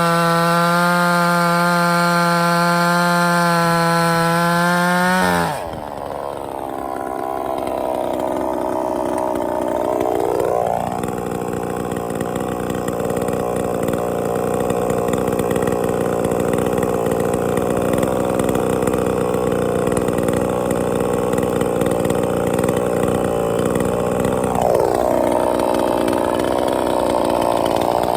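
Sungel 58 cc two-stroke gas chainsaw running at high, steady revs for about five seconds. Its pitch then drops as the chain bites into wood, and it saws under load at lower revs for roughly fifteen seconds before the revs climb again near the end.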